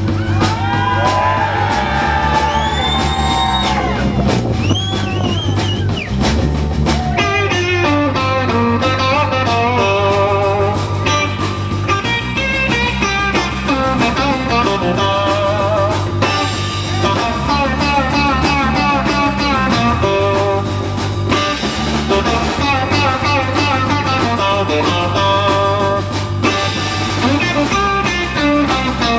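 A live rock band plays an instrumental break, with a guitar lead over bass and drums. The guitar bends notes in the first few seconds, then plays fast runs of short notes.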